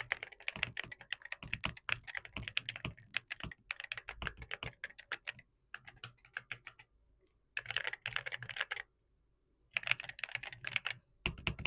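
Typing test on a Royal Kludge RKS98 mechanical keyboard with heavy Cerakeys ceramic keycaps: fast runs of key clacks, broken by short pauses about six and nine seconds in.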